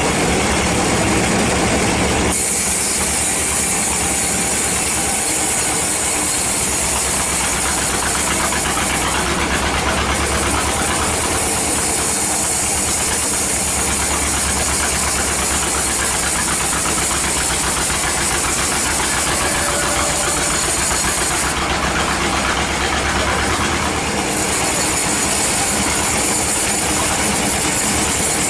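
Band sawmill cutting through a teak log: the steady noise of the running saw, with a high hiss of the blade in the wood that comes in about two seconds in and fades twice for a few seconds.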